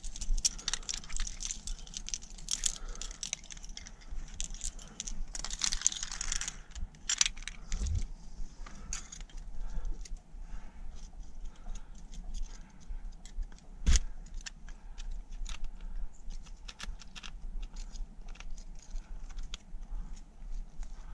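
Metal climbing gear, carabiners and nuts on a trad rack, jangling and clinking as it is handled and moved. The jangling is busiest for the first six seconds or so, then gives way to scattered clicks, with one sharper knock about two-thirds of the way in.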